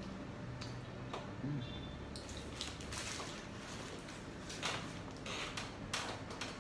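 Chewing and wet mouth sounds of someone eating, with many short, scattered clicks and crackles that come more often in the second half.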